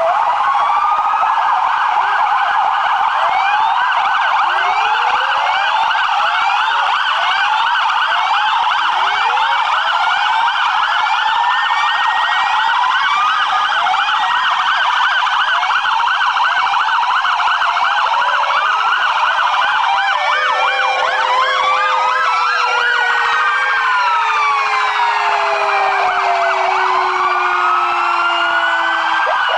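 Several sirens sounding at once. Rising and falling wails overlap with fast yelping warbles, and a long, slowly falling tone runs through the second half.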